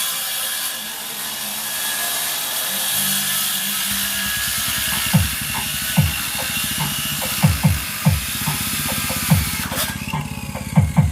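Bass-heavy music played through a subscoop subwoofer box as a sound check. From about five seconds in, deep bass hits recur, each dropping quickly in pitch.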